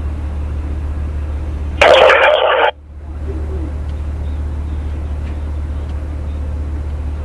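Steady low hum, with a loud burst of two-way radio static about two seconds in that lasts under a second and cuts off sharply as the transmission is unkeyed.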